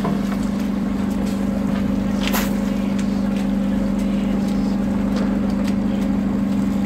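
Fishing boat's engine running with a steady low hum, over faint clicks from deck work and one sharp knock about two and a half seconds in as the tuna is gaffed and dragged aboard.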